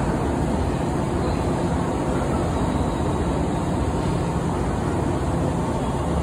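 A yellow JR West electric train at a covered station platform, giving a steady low rumble and hum from its running equipment.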